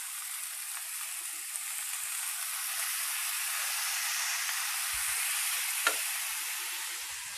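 Shredded cabbage, onion and garlic sizzling steadily in hot oil in a pot, with one light click about six seconds in.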